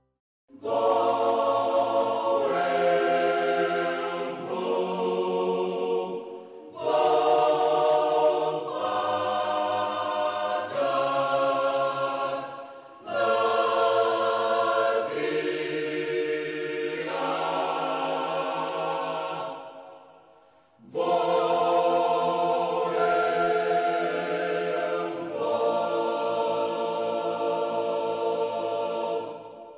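A choir singing slow, held chords in four long phrases, each separated by a brief pause.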